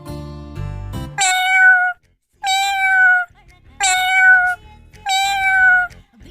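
A cat meowing four times in a row, each meow under a second and falling slightly in pitch at the end. For about the first second, before the meows, there are steady sustained musical tones.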